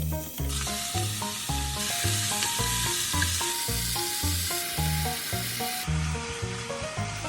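Food sizzling as it fries in a pan, starting about half a second in and dropping away near the end, over background music with a steady beat.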